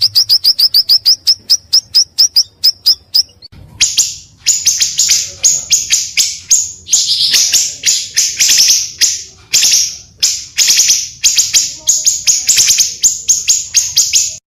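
Pancawarna bird calling. First comes a rapid series of high, short notes that slows down and stops after about three seconds. Then comes a louder song of quick chattering notes in runs with short pauses, which ends just at the close.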